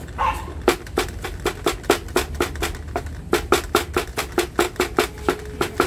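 Cleaver chopping green chilies on a thick round wooden chopping block: quick, regular knocks of the blade against the wood, about four to five a second, as the chilies are minced fine.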